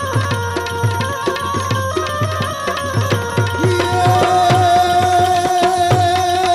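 Instrumental interlude of Gujarati devotional folk music: tabla strokes in a quick rhythm under a sustained melody. About four seconds in, a strong held note comes in over the drumming.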